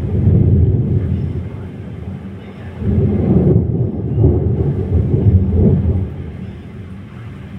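Thunder rumbling, a low rolling sound that swells at the start, swells again from about three seconds in, and then dies away near the end.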